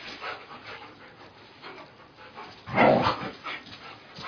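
Dogs making soft sounds as they play, with one loud, short vocal outburst about three seconds in.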